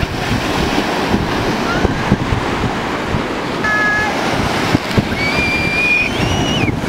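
Ocean surf breaking and washing through the shallows, with wind buffeting the microphone. A child's high-pitched squeal sounds briefly a little past halfway, and again for most of the last two seconds.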